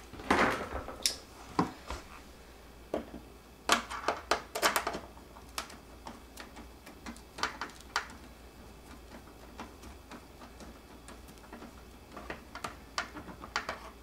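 Irregular clicks and knocks of plastic and metal as a dishwasher door's control panel is handled and worked with a screwdriver. They are busiest in the first few seconds, thin out to near stillness in the middle, and come back as light ticks near the end.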